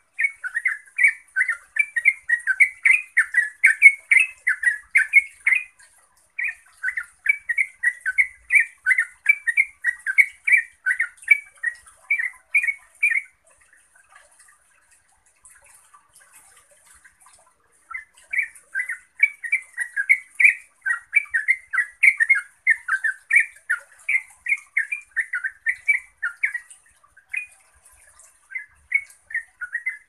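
Yellow-vented bulbul singing its rapid, continuous 'ngeropel' song: bubbling chirpy notes, about four a second, in long runs broken by short breaks and one pause of about five seconds around the middle.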